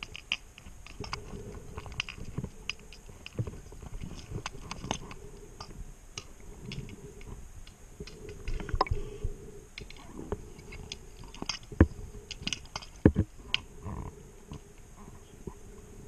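Underwater recording from a scuba diver's camera: scattered irregular clicks and knocks over low rumbling and a faint steady hum, with the loudest knocks about twelve and thirteen seconds in.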